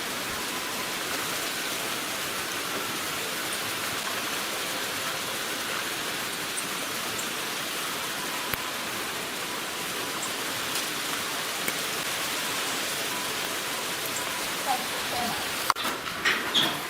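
Steady hiss of a blizzard, strong wind driving snow, with a few brief sharp sounds near the end.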